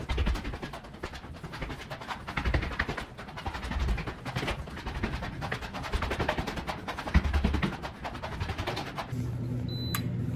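Footsteps climbing concrete stairs, irregular thumps and scuffs. Near the end a steady low hum comes in, and an access card reader gives a short high beep as a wallet is tapped against it.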